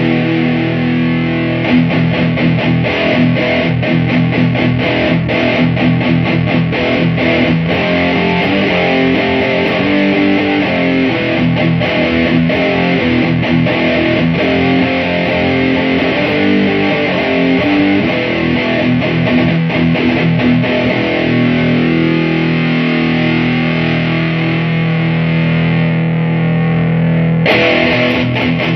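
Electric guitar played through a fuzz pedal into an amplifier: heavily distorted riffs and held chords. The tone turns brighter just before the end.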